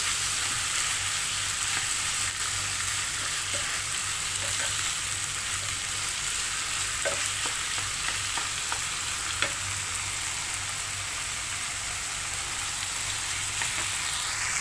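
Shrimp and tomatoes sizzling steadily in a nonstick pan as a wooden spatula stirs them, with a few light scrapes and taps of the spatula against the pan.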